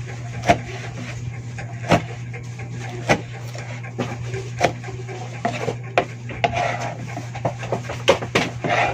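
Kitchen knife slicing long green chili peppers on a cutting board: sharp chops of the blade hitting the board at an uneven pace, about one every second or so, over a steady low hum.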